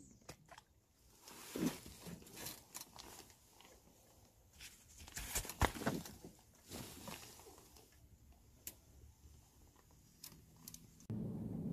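Faint, scattered small clicks and rustles at irregular moments, several seconds apart. Near the end a steady hiss of outdoor background noise cuts in suddenly.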